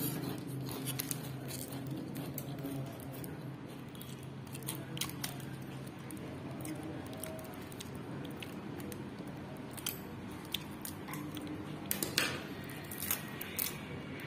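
Plastic parcel wrapping crinkling and crackling as it is cut with a blade and torn open, with scattered sharp clicks that come thickest near the end. A low steady hum sits under the first half.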